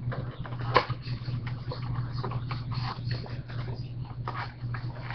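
Crackling and rustling of packaging as a retail box of trading cards is opened by hand, many short irregular crinkles and clicks, over a steady low electrical hum.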